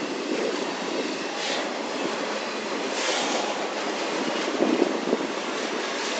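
A long intermodal freight train of trailers and containers on flatcars rolling past, its steel wheels on the rails making a steady rumble. Brief hissing swells come about one and a half and three seconds in, and a few sharper knocks come about three quarters of the way through.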